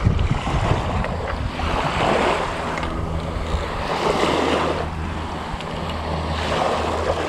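Wind buffeting the microphone over small waves lapping at a sandy shoreline, the wash swelling every couple of seconds. A low steady hum runs underneath from about two seconds in.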